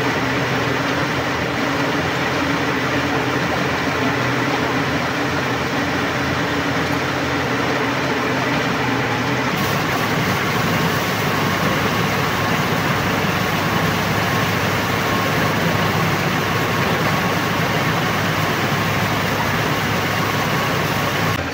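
Borewell drilling rig's engine running steadily, its note changing abruptly about ten seconds in.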